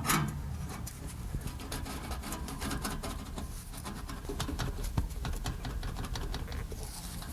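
Light, irregular clicks and taps of a steel exhaust pipe being handled and worked into a rubber exhaust hanger, over a steady low hum.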